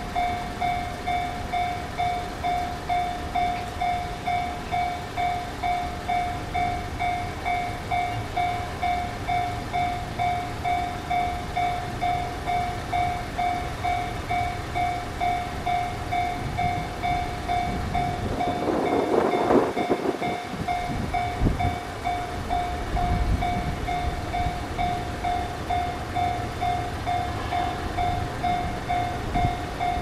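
Railroad crossing's electronic warning bell ringing in an even, repeating ding over a low rumble. About two-thirds of the way through, a brief louder noise swells up and fades.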